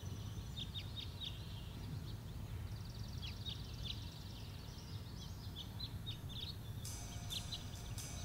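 Small birds chirping again and again in short, quick calls over a steady low ambient hum. Music comes in near the end.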